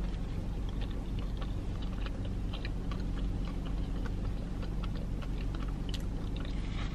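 Close-up chewing of a Takis-coated Korean fried mozzarella stick, with many small clicks from the coating and cheese, over a low steady hum.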